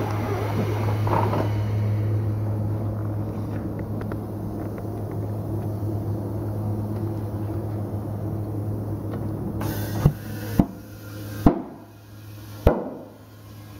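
Steady low machine hum, then four sharp knocks in the last few seconds, each dying away quickly.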